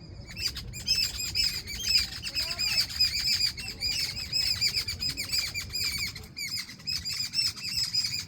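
Birds chirping in a dense, continuous chorus of rapid, high-pitched chirps, with several birds calling at once.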